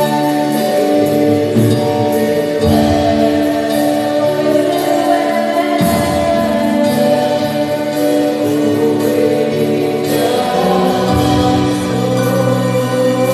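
Gospel worship song: voices singing over sustained instrumental chords, the chords changing every few seconds.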